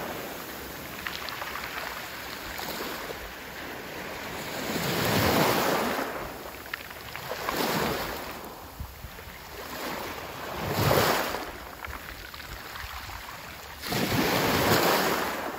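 Small sea waves breaking and washing up a pebble beach, several surges swelling and fading every few seconds.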